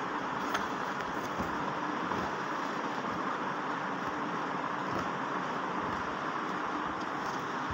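Steady background noise with a faint low hum and a few faint clicks, about half a second in and again later.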